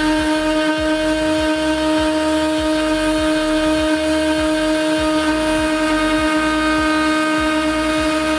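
The EcubMaker TOYDIY2's CNC tool head spindle runs at speed with a steady, high whine while its engraving bit cuts into a perspex sheet. Under the whine, a lower rumble changes every fraction of a second as the head moves across the cut.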